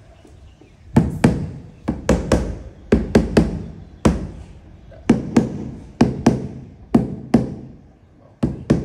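A run of sharp, heavy knocks, often in pairs, at roughly two a second, starting about a second in, each dying away quickly.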